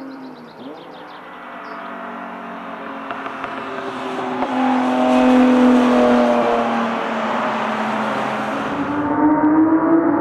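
Track cars' engines running at speed, their notes gliding up and down as they change gear and accelerate, growing louder toward the middle, with another engine note climbing near the end.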